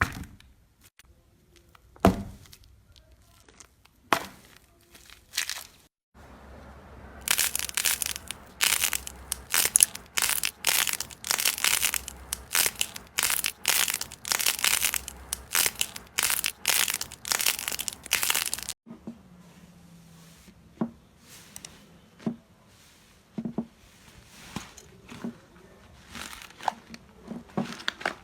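Slime being handled by hand, crackling with quick sharp clicks. The clicks are sparse at first, come thick and loud through the middle stretch, then turn quieter and sparser.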